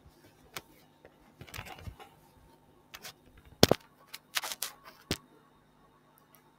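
A string of short, sharp clicks and knocks close to a computer microphone, about a dozen in all, with the loudest knock a little past halfway.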